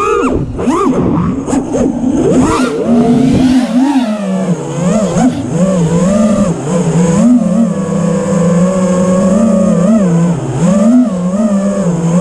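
FPV racing quadcopter's brushless motors and propellers whining. The pitch swoops up and down sharply with quick throttle changes in the first few seconds, then settles into a lower, gently wavering whine.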